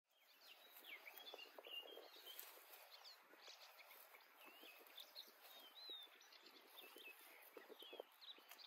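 Faint outdoor birdsong: several birds chirping and whistling in short, quick phrases that overlap throughout, over a steady background hiss.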